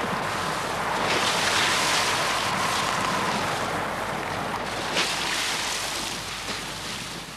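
Wind and heavy seas: a steady rush of breaking waves and wind noise, fading away over the last couple of seconds.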